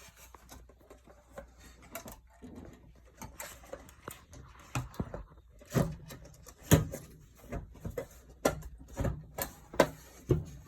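Irregular clicks and knocks of a part being handled and fitted back onto a top-load washer by hand, with the sharpest knocks in the second half.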